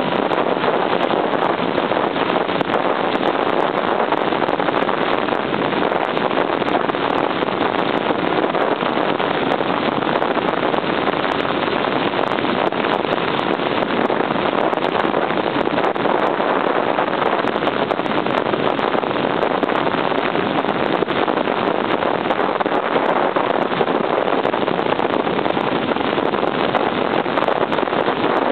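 Wind rushing over the microphone mixed with a 1978 Honda CB750's inline-four engine running steadily while the motorcycle rides along, at an even level throughout.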